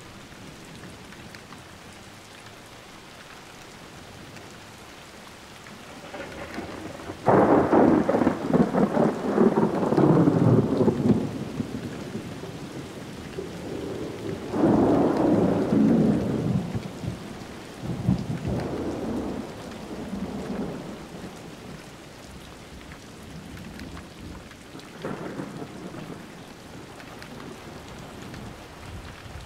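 Thunderstorm: steady rain with thunder rumbling over it, a loud long peal starting about seven seconds in, a second one about halfway through, then weaker rumbles trailing off, the last one faint near the end.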